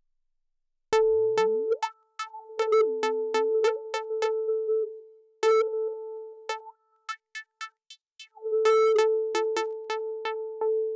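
Teenage Engineering OP-1 Field synthesizer being played: a held mid-pitched synth tone with sharp, clicky note attacks about two to three a second. It comes in about a second in with a quick upward pitch sweep and drops out briefly twice.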